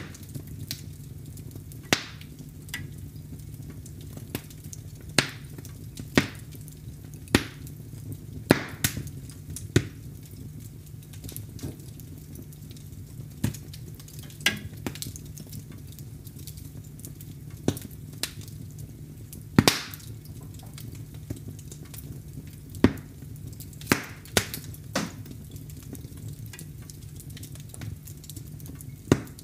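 Wood fire crackling in a fireplace: irregular sharp pops and snaps over a steady low rumble of the flames, with the loudest pop about two-thirds of the way through.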